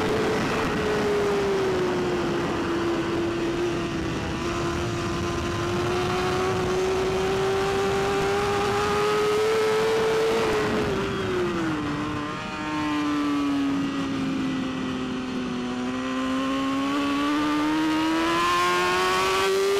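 BMW S1000RR inline-four superbike engine heard onboard at high revs. The pitch eases, then falls lower with a brief dip in level about twelve seconds in as the bike slows and downshifts, stays low for a few seconds, then climbs steadily again as it accelerates.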